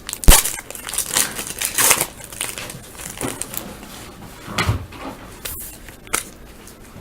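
Foil hockey card pack being torn open and its wrapper crinkled, with a sharp click just after the start and another click about six seconds in.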